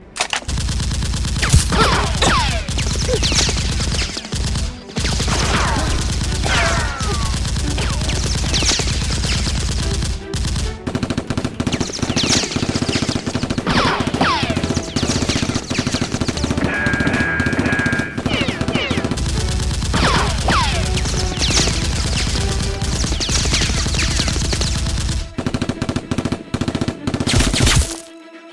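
Sustained rapid automatic gunfire, a continuous machine-gun rattle, with falling whizzing sounds like bullets or ricochets laid over it throughout. It starts abruptly and cuts off just before the end, with a brief thinning of the low thump about a third of the way in.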